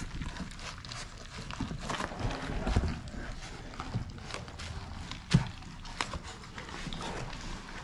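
Puppies eating thick mush from a stainless steel pan: a run of small irregular clicks and knocks as they lap at the food and bump the pan, with one sharper knock about five seconds in.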